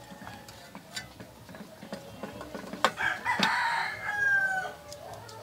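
A rooster crows once, starting about three seconds in and lasting about two seconds, the loudest sound here. Before it come a few light metallic clicks of a screwdriver turning a screw.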